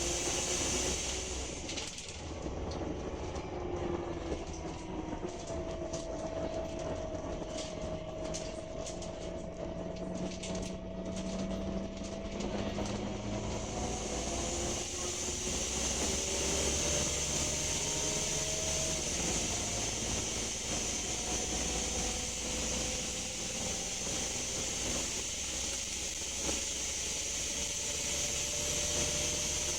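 Scania K310UB bus with a 9.3-litre five-cylinder DC9 engine accelerating at motorway speed, heard from inside, its engine and gearbox tones slowly rising. Over it runs a whooshing hiss that comes only under acceleration, of unknown cause, strongest from about halfway, with light rattling clicks in the first half.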